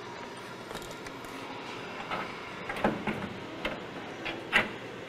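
Metal car parts knocking and clunking as a hydraulic steering rack is test-fitted into the car: a few short knocks about a second apart in the second half, the last the loudest, over steady workshop background noise.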